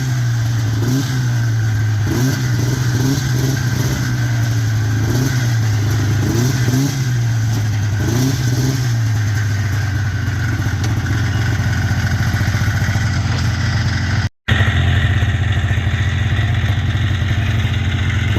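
Arctic Cat EXT 530 snowmobile's two-stroke twin engine running steadily, its pitch rising and falling slightly. The sound cuts out for an instant about 14 seconds in and then carries on, a little duller.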